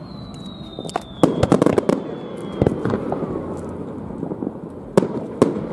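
Aerial fireworks shells bursting: a rapid cluster of bangs about a second in, then single bangs, two of them close together near the end. A thin whistle slowly falls in pitch over the first half.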